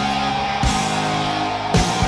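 Background rock music with guitar: held chords, with a drum hit a little past halfway and another near the end.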